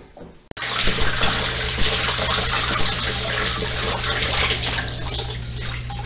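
Washing-machine drain water gushing out of a PVC inlet elbow and splashing into a plastic storage drum. It starts abruptly about half a second in, with a low steady hum beneath it.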